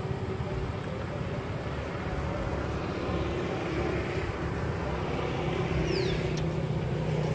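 A motor vehicle engine runs with a steady low drone that grows a little louder in the second half. A short, high, falling chirp comes about six seconds in.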